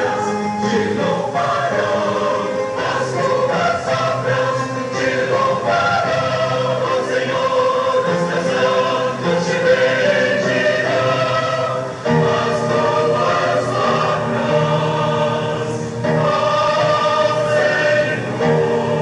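Church choir singing a hymn in several parts, with long held notes. There are short breaks between phrases about twelve and sixteen seconds in.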